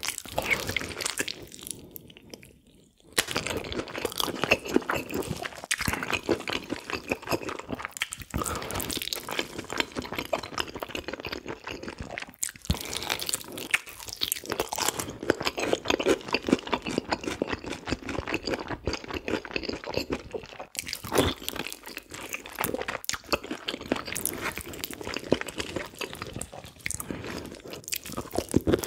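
A person chewing and biting spicy braised pig's feet (bul-jokbal), close-miked, as a dense run of small clicks and smacks. There is a brief pause about three seconds in.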